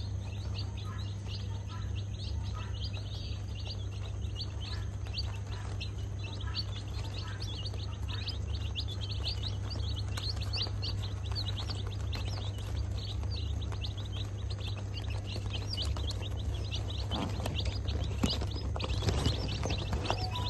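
A group of young chicks peeping continuously, many rapid high-pitched peeps overlapping, over a steady low hum.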